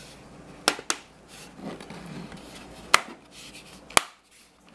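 Plastic case tabs of a SVINZ SDC008 clock snapping into place as the case halves are pressed together: four sharp clicks, two close together about a second in, then one about three seconds in and a last one a second later, with plastic rubbing and handling between.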